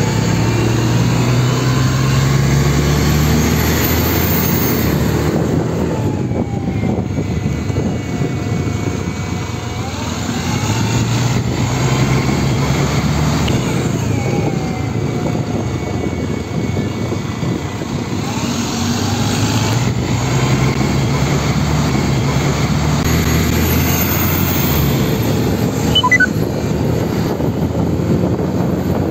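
Diesel engine of a Volvo city bus with Neobus bodywork pulling away and accelerating, its pitch climbing in several long rises and dropping between them as it goes up through the gears, with a higher whine rising along with it. A brief high squeak near the end.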